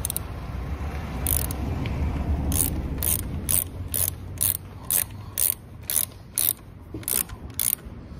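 Ratchet wrench clicking in about a dozen short strokes, roughly two a second, tightening bolts on a Honda Crea Scoopy moped's belt-drive case during reassembly after a drive-belt replacement. A low rumble of handling the tool and parts comes first, for a couple of seconds.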